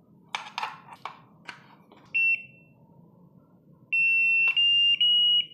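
A few light clicks as a 4S LiPo's connector is plugged into a SkyRC IMAX B6 V2 charger, then the charger's beeper gives a short high beep about two seconds in. Near the end comes a long high beep in three joined steps, each a little higher, as the Enter/Start button is held to start the battery check.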